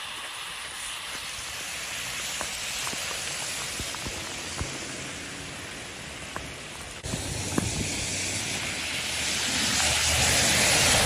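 Heavy rain falling steadily, with car tyres hissing through water on the road and scattered sharp ticks. About seven seconds in, the sound changes abruptly to a fuller rain with a deeper rumble, growing louder near the end.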